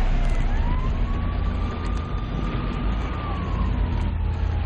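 An emergency-vehicle siren wailing, rising about half a second in, holding, then slowly falling, over the louder low rumble of road noise inside a moving car.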